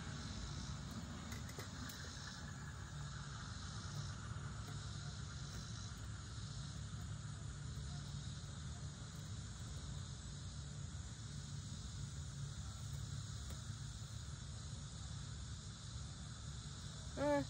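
Steady outdoor background of insects, crickets, chirping over a low steady hum, with one brief pitched squeak near the end.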